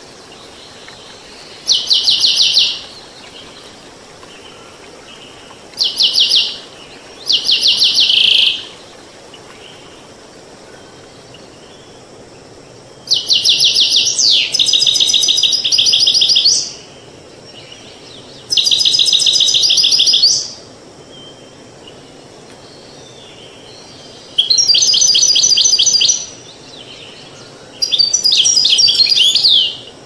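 European goldfinch singing in about seven bursts of fast trills of repeated high notes, each one to three seconds long with pauses between, over the steady rush of a stream.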